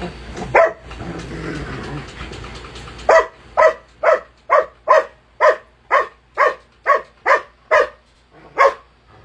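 A large shepherd-type dog barking in a fast, steady run of loud barks, a little over two a second, after a single bark and a few seconds of rustling noise. It is reacting to a drink can held up to it, with teeth bared.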